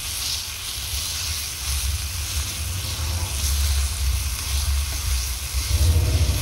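Tomato, onion and spice masala frying in oil in a pan, sizzling steadily as the tomatoes cook down. Underneath is a low rumble that grows louder near the end.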